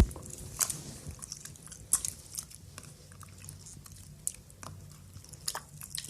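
Over-activated slime being squeezed and kneaded by hand, giving irregular sticky clicks and crackles several times a second.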